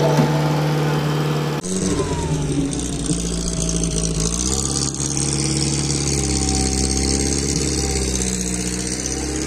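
A vehicle engine running steadily. Its pitch drops and then rises again partway through as the engine speed changes.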